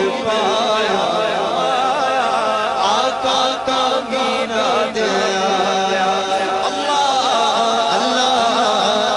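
A man's voice chanting an Urdu naat, a devotional song in praise of the Prophet Muhammad, with long melismatic held lines.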